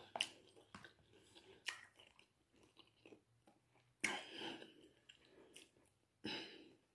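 Quiet chewing and eating sounds from someone eating king crab legs, with a few short crunches and clicks; the loudest comes about four seconds in.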